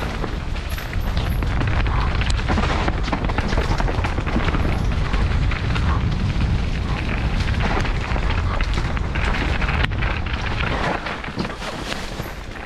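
Mountain bike descending a dirt forest trail at speed, heard from a helmet camera: a heavy low rush of wind on the microphone, with frequent clicks and knocks from the tyres and bike over roots and rough ground.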